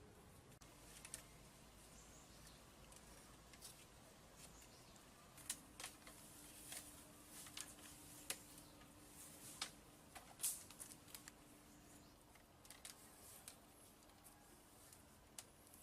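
Faint, irregular small clicks and taps over near silence, sparse at first and more frequent from about five seconds in, with a faint steady hum through the middle.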